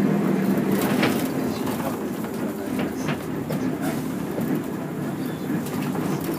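Inside a moving route bus: the diesel engine runs steadily under road noise, with a few short rattles and knocks from the cabin.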